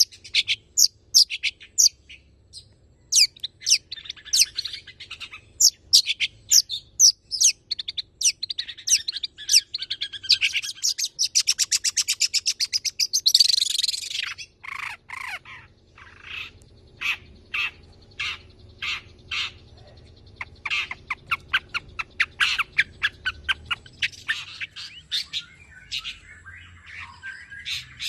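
A long-tailed shrike singing a fast, varied song of sharp high chirps and mimicked notes. About halfway through it runs into a rapid even trill that ends in a loud harsh burst, then carries on with spaced sharp notes.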